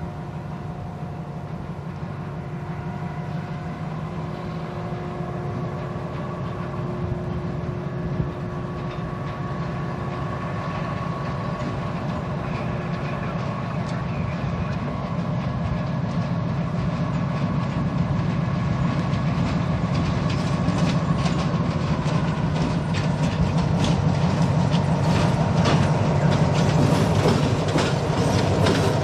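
Diesel switcher locomotive running as it approaches pulling covered hoppers, growing steadily louder. In the last third, the wheels click over the rail joints with increasing frequency as it draws close.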